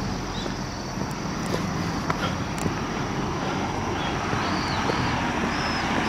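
Road traffic on a main road: a steady noise of passing vehicles, growing a little louder toward the end.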